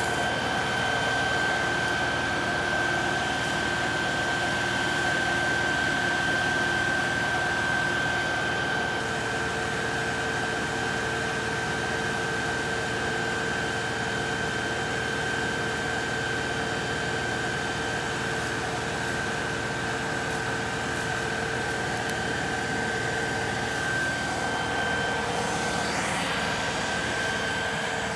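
LS XR3135 compact tractor's diesel engine running at a steady speed, with a constant high whine over the engine noise. A short rising sweep comes near the end.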